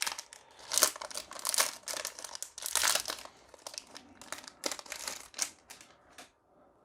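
Foil booster pack wrapper crinkling and crackling in the hands as it is torn open, dying away near the end.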